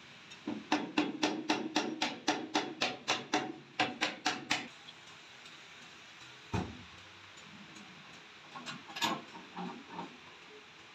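Hammer blows on the steel cutter rotor hub of a flour mill (atta chakki), about sixteen quick ringing metal strikes at roughly four a second. A single heavy thump follows about two seconds later, then a few lighter metal knocks.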